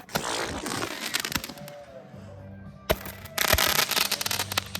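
Small consumer fireworks crackling and hissing, with two sharp pops about three seconds in, followed by a burst of dense crackling.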